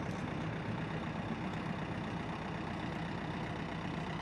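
A vehicle's diesel engine idling steadily, a low even hum with no change in speed.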